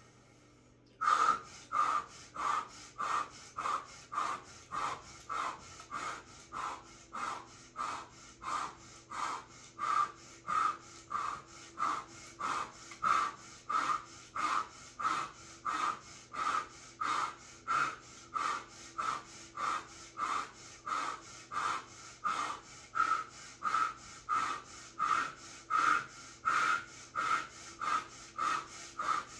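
A woman's rapid, rhythmic forced breathing through the mouth, about one and a half breaths a second, starting about a second in and keeping an even pace: controlled breathing to get through the cold of an ice bath.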